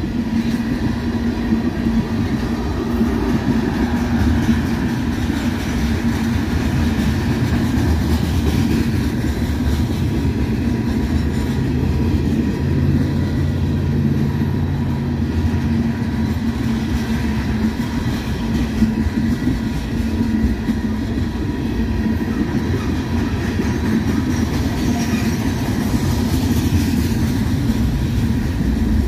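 Freight train of covered hoppers and tank cars rolling past at speed: steel wheels on rail making a steady rolling noise, with a constant low hum running under it.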